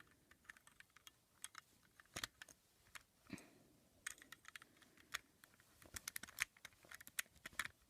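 Plastic pieces of a partly assembled Rubik's Cube clicking and knocking as they are turned and snapped into place. Faint, irregular clicks, coming thicker in the second half.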